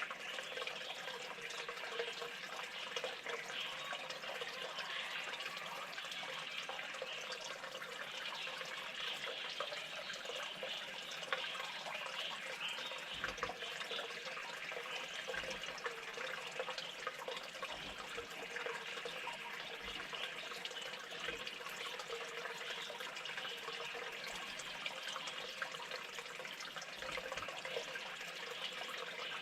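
Steady trickling, splashing water with many small drips.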